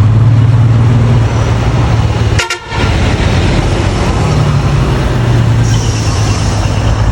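Heavy truck's diesel engine running loud and steady through its exhaust, broken by a short gap about two and a half seconds in. A high horn tone joins near the end.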